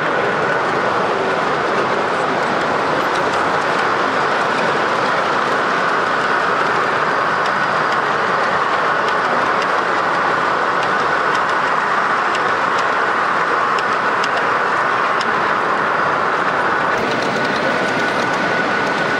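Gauge 0 model trains running on the layout's track, their wheels clattering over the rails, within a steady, even din from the exhibition hall. A faint steady whine sits under it at the start and again near the end.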